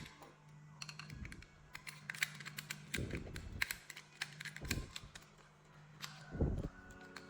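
Rapid light clicks and taps of small hard objects being handled, with four dull thumps spaced about a second and a half to two seconds apart.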